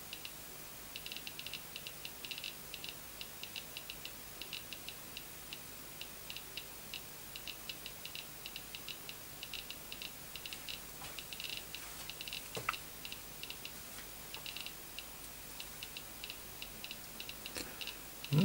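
Geiger counter with a Soviet-era STS tube clicking at random, several high-pitched clicks a second, as it counts radiation from a radioactive vintage watch measured through its case back: a strong source, "a rather hot one". One louder knock about two-thirds of the way through.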